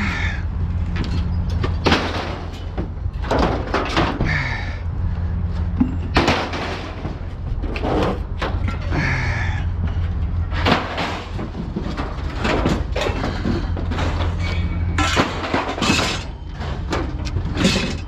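Steel shelving panels clanging and banging as they are handled, with irregular metal impacts and short ringing, over a steady low hum.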